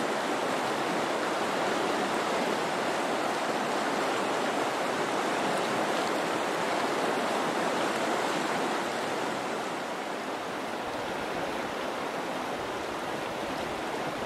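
Shallow river running over a rocky bed: a steady wash of flowing water, easing slightly about two-thirds of the way through.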